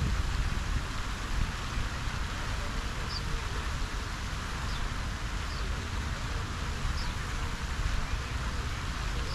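Steady hiss and splash of fountain jets falling back into a lake, over a low, uneven wind rumble, with a few faint, brief high bird chirps.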